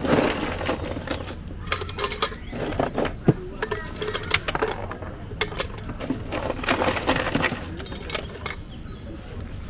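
Metal cookware and utensils clinking and clattering, an irregular run of sharp clicks and knocks.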